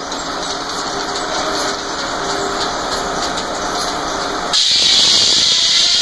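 Frick sawmill running with its large circular saw blade spinning, a steady mechanical noise with faint humming tones. About four and a half seconds in, a loud, high hiss sets in suddenly and holds.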